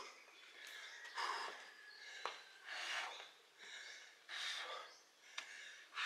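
A person breathing hard from the exertion of burpees, with heavy breaths coming about every one and a half seconds and one short knock about two seconds in.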